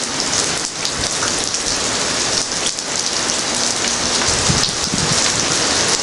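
Steady, heavy rain falling, a dense even hiss.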